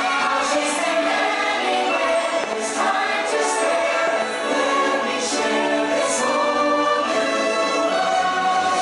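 Music with a choir singing sustained notes.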